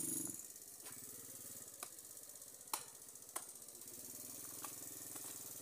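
Small quad bike's engine running faintly with an even pulsing, with a few sharp clicks spread through.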